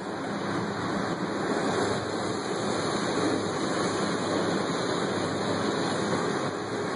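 Steady rushing hiss of spraying water at an automatic car wash.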